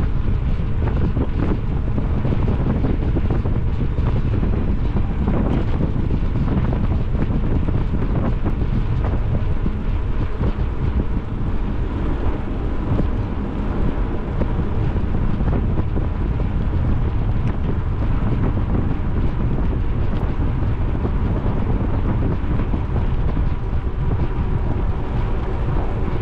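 Steady wind rushing over the microphone of a camera carried on a moving bicycle.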